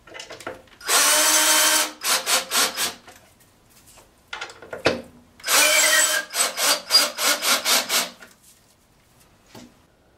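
Cordless drill driving long screws through a plywood jig into a cedar log, to lock the log against turning. It goes in two long steady runs with a motor whine, each followed by a quick string of short trigger bursts as the screw is snugged home.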